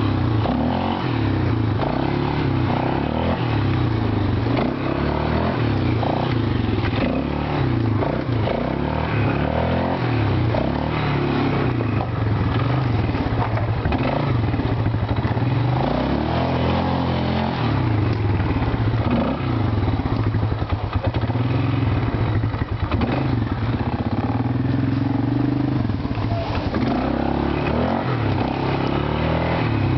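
ATV engine running under load, its pitch rising and falling as the throttle is worked over a bumpy dirt trail.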